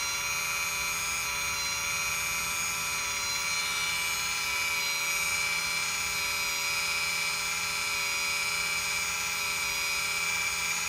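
Electric parking-brake actuator motor on a Lexus rear brake caliper, powered straight from jumper leads, running with a steady whine as it winds the caliper piston back.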